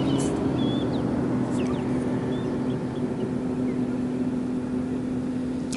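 Steady low hum of a boat motor running.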